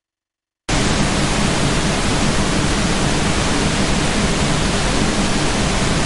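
Loud, steady hiss of static-like noise that cuts in abruptly from dead silence less than a second in, with no pitch or rhythm.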